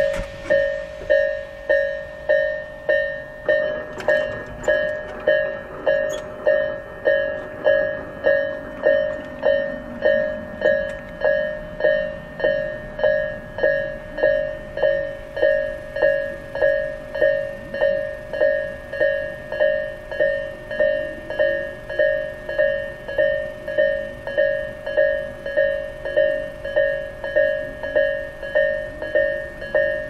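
Japanese railway level-crossing electronic warning bell, the Isesaki-type low-tone alarm in its slow version, ringing a steady repeating ding about three times every two seconds. It is the sign that the crossing is closed for a train.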